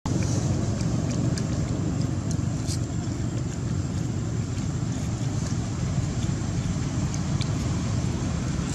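Steady low rumbling background noise with a few faint clicks.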